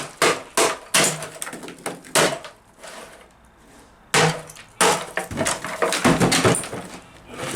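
A loudspeaker's wooden cabinet being smashed apart: a few sharp cracking blows in the first two seconds, a pause, then a rapid flurry of crashing, splintering hits.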